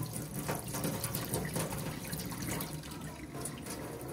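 Water running and splashing steadily, with an irregular spattering texture.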